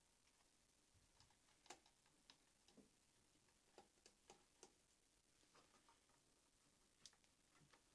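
Faint, irregular light clicks and ticks of a screwdriver and small plastic parts being worked on a Tamiya TT02's plastic chassis as screws are undone, the clearest about a second and a half in.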